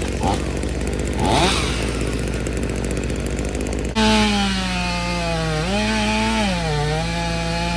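Two-stroke chainsaw running at high revs and cutting through a tree, its engine pitch dipping and recovering as the chain bogs into the wood. About four seconds in the sound switches abruptly to a louder, clearer saw.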